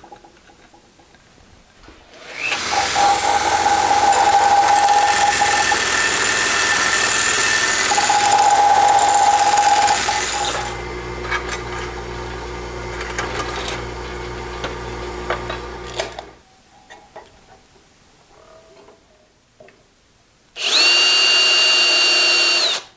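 Power tools working a small sheet-steel part: a belt grinder starts and runs, grinding the metal, for about eight seconds, then a drill press runs steadily while drilling it. After a few seconds of small clicks, a cordless drill whirs for about two seconds near the end, speeding up and then stopping as it drives 8-32 screws.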